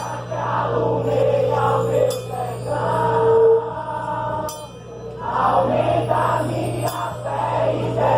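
Music with voices singing, including one long held note about three seconds in.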